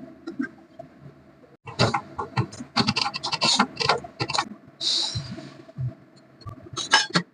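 A kitchen utensil scraping and clattering against cookware in irregular bursts, with a brief hiss about five seconds in.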